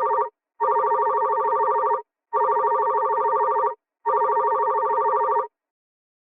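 Telephone ringing: a warbling trill in repeated rings about a second and a half long with short gaps between them, the end of one ring then three full rings, stopping about five and a half seconds in.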